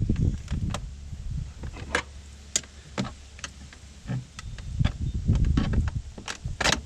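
Irregular clicks and light knocks of a Phillips screwdriver and plastic door-handle trim being worked by hand as a screw is backed out of a car's interior door handle, with low rumbles of handling in between.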